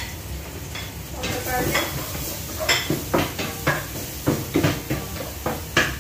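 Spatula knocking and scraping against a frying pan as food is stirred, over the sizzle of food frying. The knocks come thick and fast from about halfway through.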